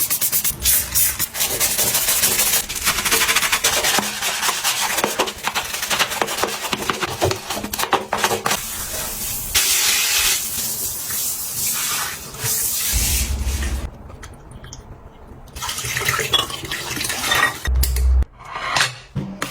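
Bathroom cleaning sounds: water running and splashing with scrubbing, in uneven stretches, with a short lull about two-thirds of the way through.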